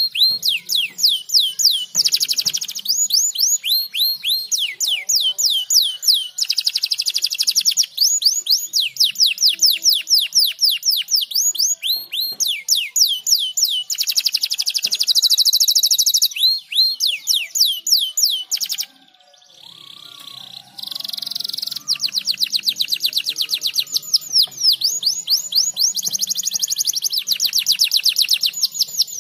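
Domestic canary singing: long rolls of fast, repeated down-slurred notes, changing to a new note type every few seconds. The song breaks off briefly about two-thirds of the way through, then resumes as a denser trill.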